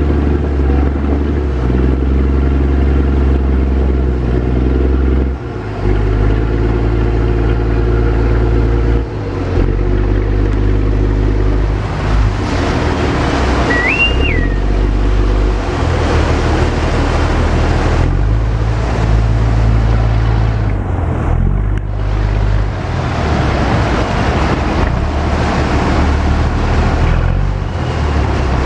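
Speedboat's outboard-type motor running loud and steady, its pitch stepping up and down several times as the throttle changes, with the rush of water and wind growing in the second half. A brief high whistle-like tone sounds about halfway through.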